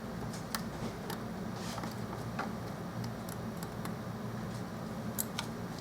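Scattered small clicks and taps of hand tools on the parts of an iPhone 4S being worked on, a few sharp ticks spread irregularly, over a steady low hum.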